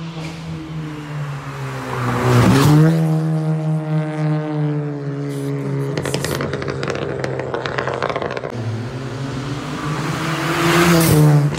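Ford Fiesta ST mk7's turbocharged 1.6 EcoBoost four-cylinder, stage 1 with a Milltek full exhaust, driven hard past: the engine note climbs under acceleration, a burst of rapid crackles comes about halfway, and the note swells and drops in pitch as the car passes near the end. Exhaust and intake are both clearly heard.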